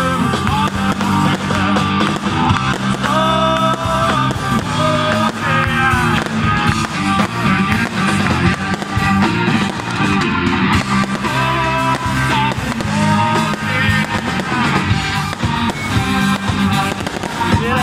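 Rock music with guitar, playing continuously at a steady loud level.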